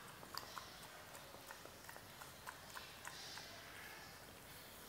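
Dog eating pieces of egg off a tiled floor: faint, irregular small clicks of its mouth and teeth as it picks up and chews the bits.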